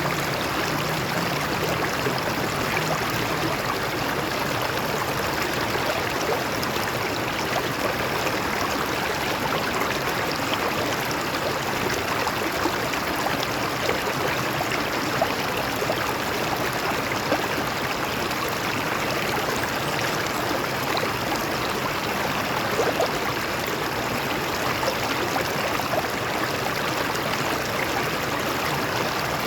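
Stream water flowing over rocks: a steady rush with small splashes and gurgles.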